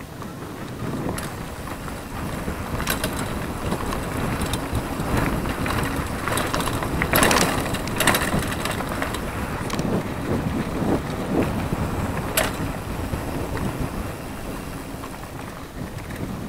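Mountain bike riding fast down a dirt trail: a steady rumble of tyres on packed earth mixed with wind on the microphone, broken by several sharp rattles and knocks as the bike hits bumps, the loudest about seven and eight seconds in.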